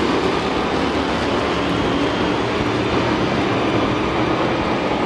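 Several street stock race cars' engines running on the track, a steady loud engine roar with no breaks.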